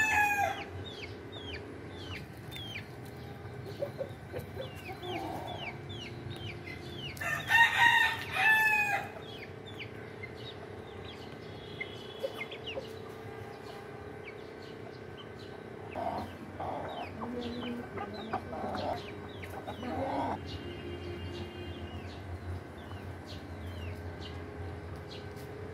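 Backyard chickens: a rooster crows once, about two seconds long, some seven seconds in, with the tail of another crow at the very start. A chick peeps over and over in short falling cheeps, and a hen clucks in low bursts later on.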